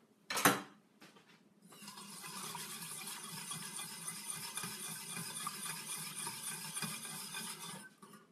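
A utensil clinks once against the pan, then about six seconds of steady scraping as a spoon stirs garlic into the sauce in the saucepan, stopping abruptly.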